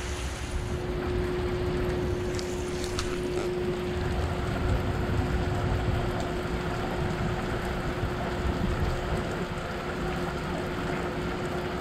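Steady rushing water in a concrete fish-hatchery raceway, with wind buffeting the microphone and a steady low hum throughout.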